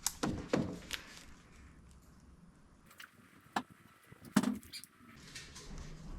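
Scattered sharp knocks and taps, about seven irregular ones, the loudest about four and a half seconds in, over a faint background.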